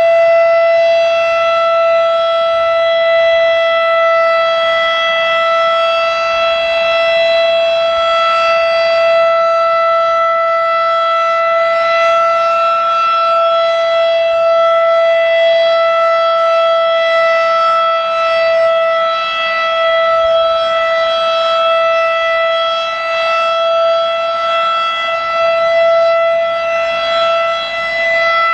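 Federal Electric Model 5 outdoor warning siren sounding a steady Alert tone during a scheduled siren test: one held pitch with a strong stack of overtones, the level wavering slightly as the rotating siren turns.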